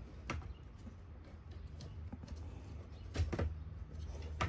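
A few sharp clicks and knocks of plastic vacuum parts being handled as a new belt is worked onto a Shark vacuum's brush roll, over a faint steady low hum.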